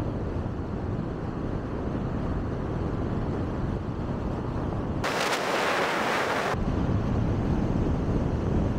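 Wind rumbling on the microphone of a camera filming from a moving car, mixed with road noise. About five seconds in, the rumble drops out for about a second and a half and a loud hiss takes its place, starting and stopping abruptly.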